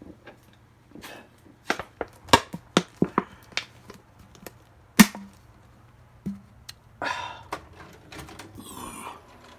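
Handling noise: a quick run of sharp clicks and knocks, one louder knock about halfway through, then brief scraping rustles near the end.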